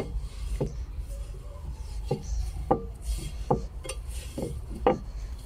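Hand rubbing fat into the inside of a new unglazed clay tagine to season it before first use, with about eight irregular light knocks and clinks against the clay.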